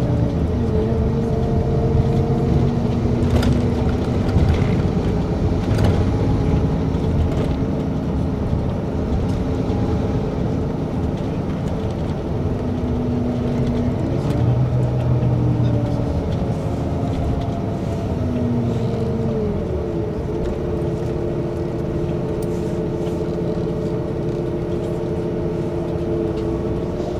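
Inside a moving bus: the drone of the bus's drive with a few pitched tones that slide up and down as it speeds up and slows, over steady road rumble.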